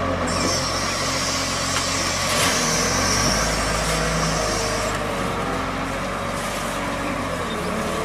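Large Volvo wheel loader's diesel engine running steadily under load as the loader raises and tips its bucket to dump gravel into a truck trailer.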